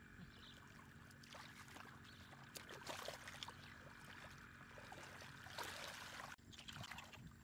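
Faint, irregular sloshing and splashing of hands groping through shallow muddy water, feeling for catfish in the mud.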